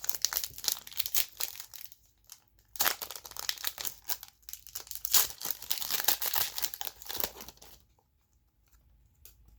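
The wrapper of a Donruss football trading-card pack being torn open and crinkled, in two stretches of dense crackling with a short gap between them.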